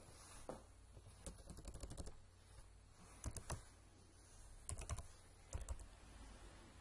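Faint computer keyboard keystrokes: short clusters of a few quick taps with pauses between, as a name is typed and edited.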